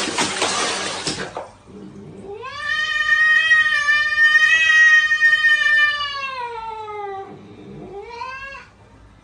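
Water splashing in a plastic tub, then a cat giving one long drawn-out yowl that rises, holds and slowly falls over about five seconds, followed by a shorter rising call near the end.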